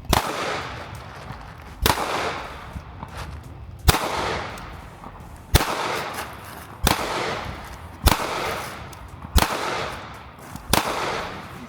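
A series of gunshots, about eight in all, fired at an even pace of roughly one every second and a half, each shot followed by a long echoing tail.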